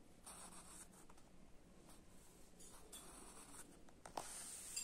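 Faint scratching of a pencil on a paper textbook page as a box is drawn around a printed word, in short strokes that are a little louder near the end.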